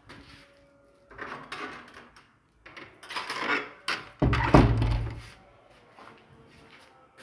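Handling noise from a phone camera carried briskly through rooms: rustles and scrapes, with a loud low rumbling scrape about four seconds in.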